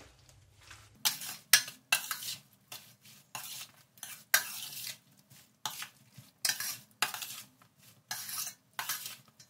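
Steel spoon scraping and clinking against a stainless steel bowl as cut lemon pieces are mixed with salt, in repeated strokes about twice a second, starting about a second in.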